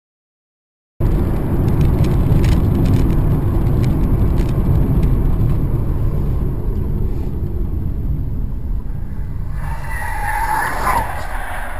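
Car on the road: loud, steady engine and tyre rumble that starts abruptly about a second in, with a few clicks at first and a brief higher-pitched squeal near the end.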